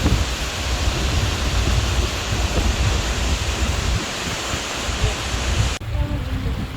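Steady rushing noise of a waterfall mixed with wind buffeting the microphone. It cuts off abruptly near the end, giving way to a quieter sound with a few faint tones.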